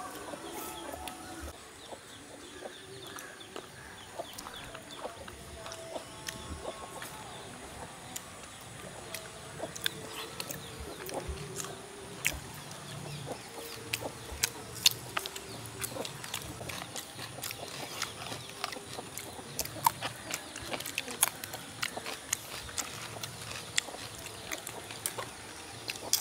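Men eating with their hands: chewing and lip-smacking while tearing and biting roasted dried fish, with sharp short clicks that become frequent from about halfway.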